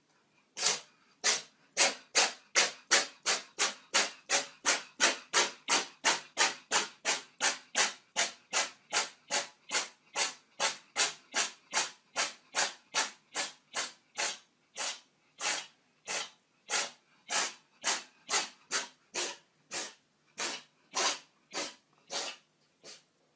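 An animal's short breathy hissing bursts, about one and a half a second, in a long steady series that slows slightly toward the end.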